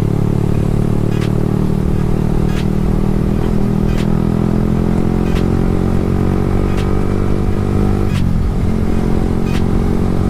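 Yamaha R15 V3's single-cylinder engine running steadily while the bike is ridden at an even speed, with a slight change in engine note about eight seconds in. Faint clicks come about every second and a half.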